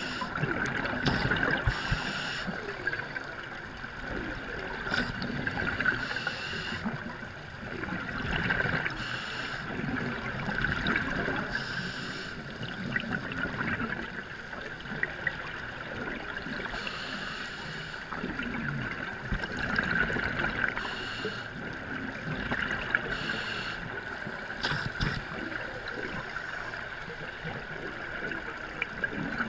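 Scuba diving underwater, heard through a camera housing: a diver breathing through a regulator, with bursts of hissing, gurgling exhaled bubbles every few seconds over a steady high hum.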